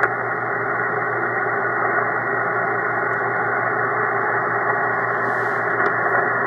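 Steady static hiss from a Drake R-4C shortwave receiver tuned to a stretch of the amateur band with no station coming through: dead air and static, sounding narrow and muffled through the receiver's sideband filter.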